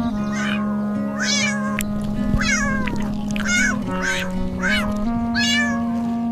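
Kittens mewing in a series of short high calls, about one a second, over background music with held notes.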